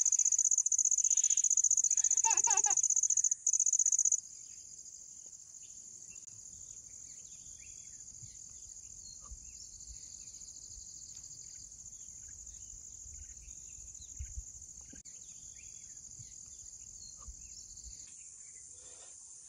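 Insects, crickets by their sound, trilling in a steady high continuous drone, loud for the first four seconds and then much fainter. A brief pitched call stands out about two and a half seconds in.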